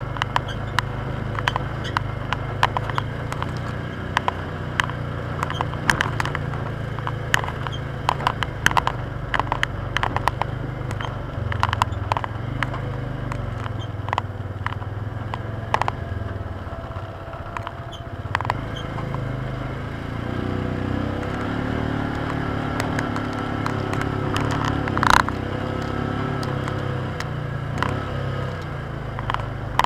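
Polaris Ranger side-by-side's engine running steadily while driving a trail, with frequent rattles and knocks from the vehicle over bumps. The engine note rises about two-thirds of the way through, and there is one sharper, louder clack near the end.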